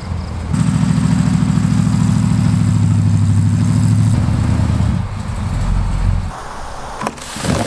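1978 Chevy K30 pickup's engine pulling the truck along, getting much louder about half a second in and holding for about four seconds before easing off. A single sharp click near the end.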